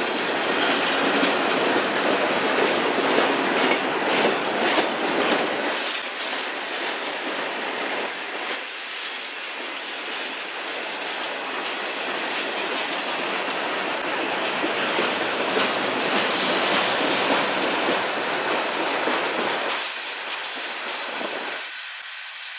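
Freight cars of a passing manifest train (steel coil cars, covered hoppers and open gondolas) rolling by close at hand: a steady rumble of steel wheels on rail with clickety-clack over the joints. The sound is loudest in the first few seconds and eases somewhat near the end.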